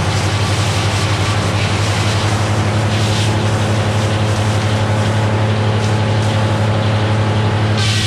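Meadows No. 1 circular sawmill blade cutting through a log, driven by a Cummins diesel engine running steadily under load. The harsh cutting noise stops abruptly near the end as the blade clears the cut, leaving the engine and spinning blade running.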